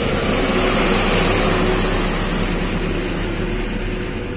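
A loaded goods truck overtaking close alongside, heard from inside the cab: its engine and tyre noise swell about a second in, then fade as it pulls ahead. Under it runs the steady engine and road noise of the vehicle being ridden in.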